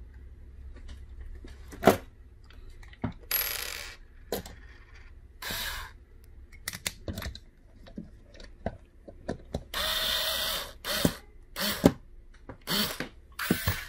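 Cordless electric screwdriver driving long screws through the fan frames into a liquid-cooler radiator in several short runs, the longest about a second near the ten-second mark. Between runs, sharp clicks and clinks of screws and the driver being handled.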